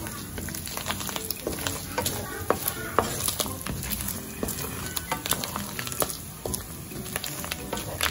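Finely chopped meat sizzling in hot oil in a nonstick pan while a wooden spatula stirs it, scraping and tapping against the pan with many sharp clicks.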